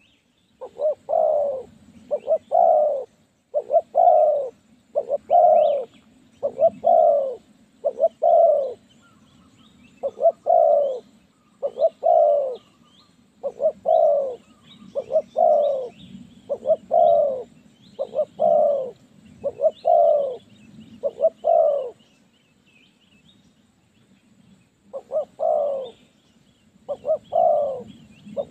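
Spotted doves cooing: a long run of short, arched coos, often in pairs and about one a second. The coos pause briefly a little after two-thirds of the way through, then resume.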